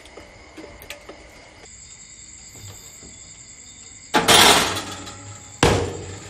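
Electrolux countertop electric oven being loaded: a loud rattle of metal against the wire oven rack about four seconds in, then the oven's glass door shutting with a sharp clack about a second and a half later.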